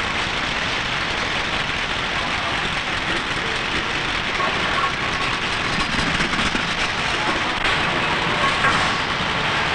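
Steady, dense clatter and rumble of a newspaper plate conveyor carrying heavy cast-lead stereotype page plates along metal tracks to the printing presses.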